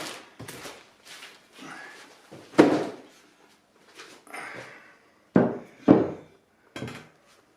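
A handful of separate knocks and thuds as parts and their packaging are handled and put down on a workbench, the loudest about two and a half seconds in and a pair close together near the end, with light rustling between.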